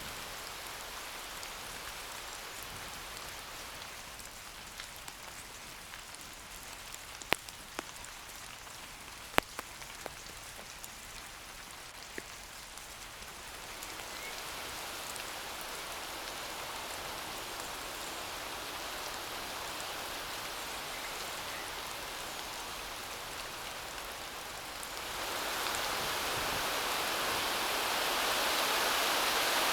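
Steady rain falling, with a few sharp drips striking close by. The rain grows louder about halfway through and steps up suddenly near the end.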